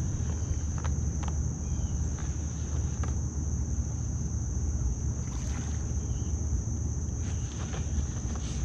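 Outdoor river ambience: a steady high-pitched insect drone over a low rumble of wind and water, with a few faint knocks.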